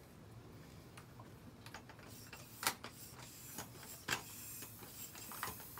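Hand air pump being worked to inflate a scooter inner tube: a few sharp clicks about a second and a half apart, the loudest two near the middle, over a faint hiss of air.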